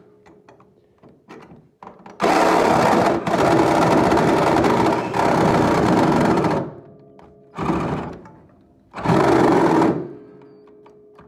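Reciprocating saw (Sawzall) cutting sheet metal in three bursts: a long run of about four seconds, then two short ones. Faint clicks and knocks come in between.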